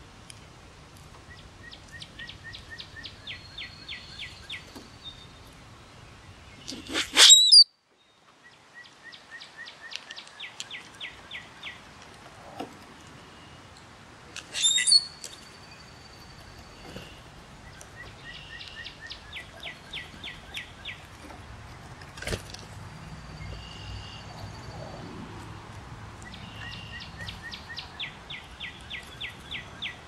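Spring songbirds singing: the same short trilled phrase repeats about every eight seconds, with two much louder, brief bird calls about seven and fifteen seconds in.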